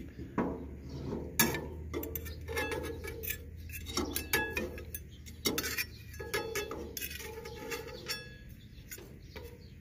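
Metal spatula and fork scraping and clinking against a cast iron waffle iron while prying out a waffle that is a little stuck: a string of sharp metallic clinks and scrapes, some ringing briefly.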